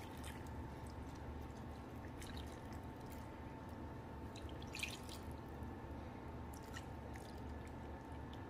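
Thin brown gravy mix poured slowly from a glass measuring cup into a baking pan of raw patties: a faint trickle with a few soft drips, over a low steady hum.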